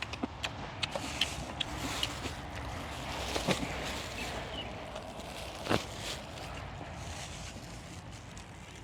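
A man eating close to the microphone: chewing with many quick wet lip-smacking clicks, and two louder knocks about three and a half and five and a half seconds in.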